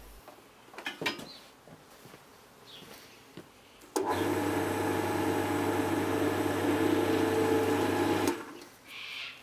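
GMC ML100 wood lathe's electric motor switched on for a power-on test with no workpiece fitted: it starts suddenly about four seconds in and runs with a steady hum for about four seconds, then is switched off and dies away quickly. A few light clicks come before it starts.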